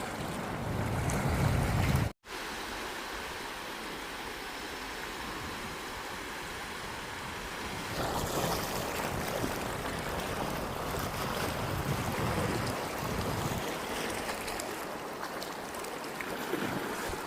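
Sea waves washing onto a beach, swelling louder for a few seconds in the middle, with wind rumbling on the microphone. The sound drops out briefly about two seconds in.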